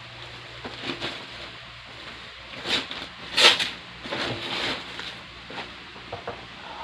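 Packaging being handled while a new PC is unboxed: a run of short rustling and scraping noises, loudest about three and a half seconds in.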